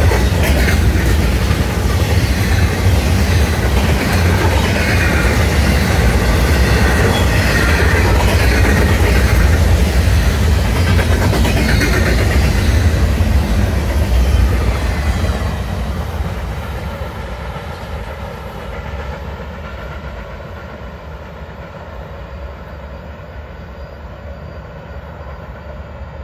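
Florida East Coast Railway intermodal freight train's cars rolling past at speed, the wheels running steadily on the rails. About fifteen seconds in the last car goes by and the sound fades as the train moves away.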